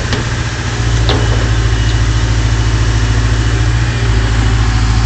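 Excavator engine idling steadily with a low hum, with a sharp click right at the start and another about a second in.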